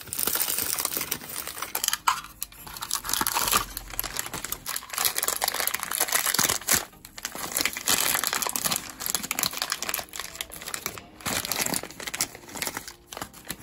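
Close crinkling and tearing of toy packaging as a Roblox Series 9 mystery box is unwrapped by hand: its cellophane wrap and the white paper wrapping around the figure inside are pulled off and crumpled.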